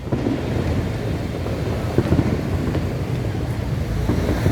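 Distant fireworks booming in a low continuous rumble, with a few faint thumps, and wind on the microphone.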